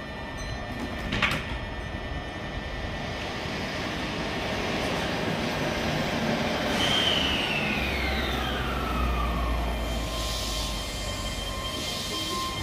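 Keihan 7000 series electric train starting to move away: a sharp clunk about a second in, then the traction motors' whine sweeping down in pitch over a couple of seconds above a low hum as it begins to accelerate, settling to a steady tone.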